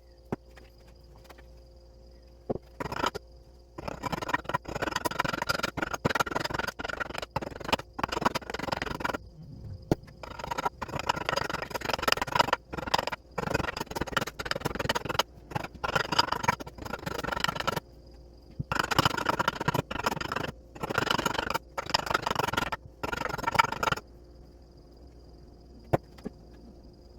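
Repeated scraping strokes of a hand tool working material, in runs of one to two seconds with short pauses between.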